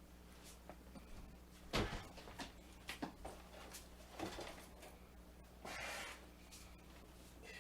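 A loaded welding tool bag worn on the back knocking and rubbing against a wall as the wearer moves. One sharp knock about two seconds in, scattered lighter taps, and a short scraping rub about six seconds in.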